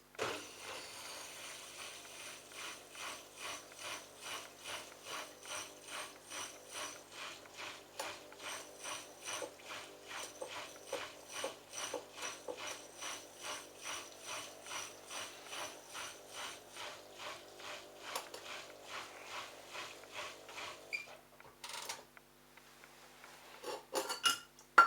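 Bosch washing machine running its drain cycle with the pump filter out: a rhythmic mechanical rattle about twice a second, which stops about 21 seconds in.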